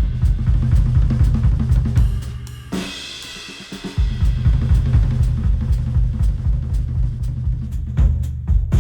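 Instrumental music with a full drum kit, with kick drum, snare and cymbals over a heavy bass beat, played back through headphones and picked up by microphones. About three seconds in, the low beat drops out for roughly a second before the full groove returns.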